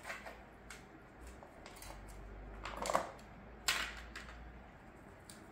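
Small clicks and clatters of foil wet cat-food trays being peeled open and handled, with a louder clatter about three seconds in and a sharp click just after.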